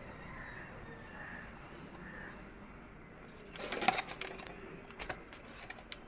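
Clicks and rattles of the oscillation rod and fittings being handled and pushed into a plastic wall-fan casing: a dense burst of clatter about halfway through, then a few single clicks.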